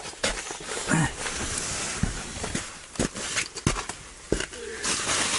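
Footsteps crunching on the packed-snow floor of a canvas tent, with scattered knocks and clicks of gear being handled. Fabric and bedding rustle near the end.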